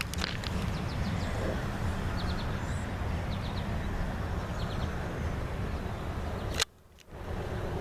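Outdoor ambience by empty railroad track: a steady low rumble with small birds chirping in short groups of three or four notes. No train is passing. The sound cuts out briefly near the end, then resumes.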